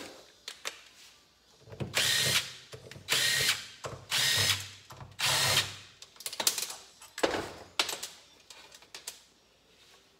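A cordless drill-driver runs in four short bursts about a second apart, backing fasteners out of a motorcycle engine's aluminium crankcase. A few lighter clicks follow.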